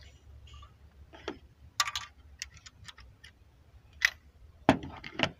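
Irregular sharp metallic clicks and taps of a hand tool being worked on a spark plug in the engine bay. There are a dozen or so, spread out, and the loudest two come near the end.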